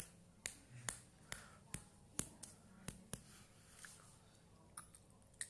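Close-up eating sounds: sharp, irregular mouth clicks and smacks, several a second, as someone chews a spicy McChicken sandwich.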